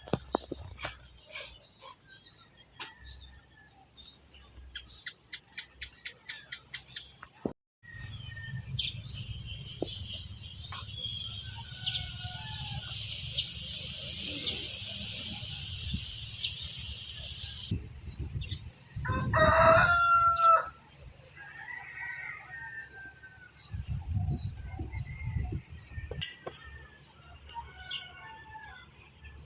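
A rooster crows once, loudly, about two-thirds of the way through. Around it are small bird chirps and a steady high-pitched drone.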